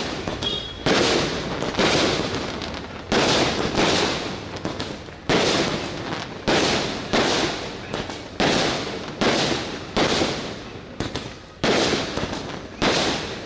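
Fireworks going off in a steady series of loud bangs, about one a second, each fading away over most of a second before the next.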